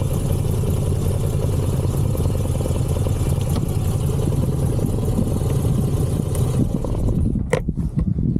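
Motorcycle engine running steadily at low revs, then shut off about seven seconds in, followed by a few sharp clicks and knocks.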